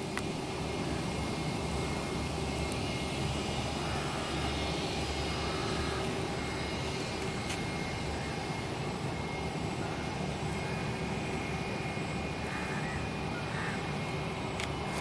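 Airbus A320-232 jet's IAE V2500 turbofan engines running steadily as the airliner moves along the runway: a constant engine noise with a steady high whine.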